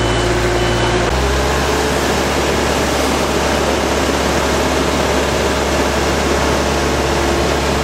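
A large truck's engine running steadily close by, its note stepping up slightly about a second in. A reversing alarm beeps during the first second.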